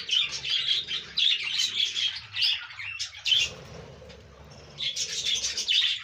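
A colony of budgerigars chirping and chattering in many quick, high calls, dying down for about a second past the middle before picking up again.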